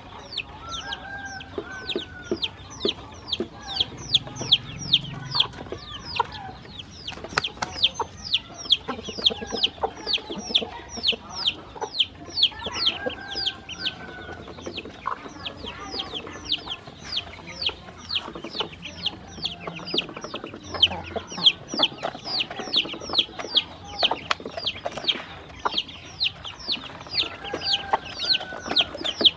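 Ducklings peeping continuously: a steady stream of short, high, downward-sliding peeps, about three a second.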